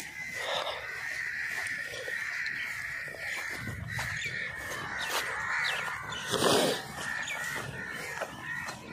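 Wild birds calling steadily in the background, with a brief louder rustle about two-thirds of the way through.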